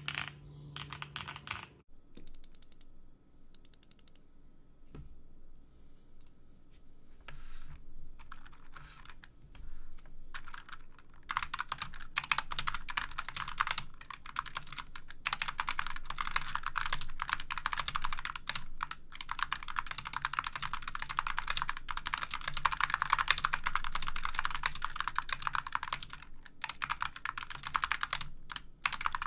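Typing on a computer keyboard: a few scattered short runs of keystrokes at first, then fast, continuous typing from about eleven seconds in.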